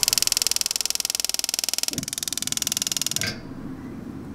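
Battery-powered piezo igniter of a Tepro Toronto gas overhead steak grill sparking in a rapid, even train of sharp clicks for about three seconds, as the gas burner is lit. When the clicking stops, the burner runs with a steady low rush.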